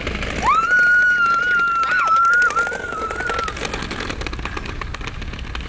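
Children's kick scooters rolling on asphalt, their small wheels giving a constant gritty rattle. About half a second in, a long high-pitched squeal starts, wavers slightly and fades out after about three seconds.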